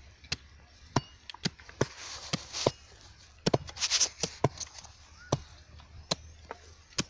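Sugarcane stalks being chopped into planting setts with a sickle: sharp chops at irregular intervals, about two a second, with two brief rustling noises in between.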